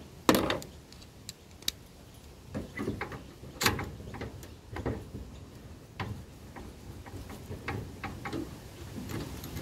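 Irregular metallic clicks and knocks from a ratchet spanner working 10 mm bolts loose on a small generator, with the louder clunks of the tool against the frame about a third of a second in and again near four seconds.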